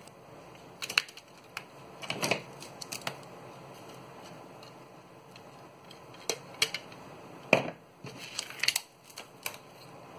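Thin craft wire being handled and cut with pliers: scattered small clicks, taps and snaps, the sharpest snap about seven and a half seconds in.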